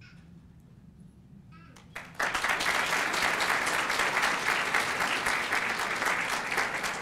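Audience applauding, starting suddenly about two seconds in and carrying on steadily; before that only a low room hum.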